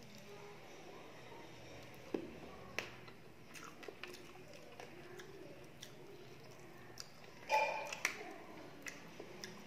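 Close-up mouth sounds of someone chewing a mouthful of rice and curry, with small wet clicks and the soft squish of fingers mixing rice on a plate. One short louder sound comes near the end.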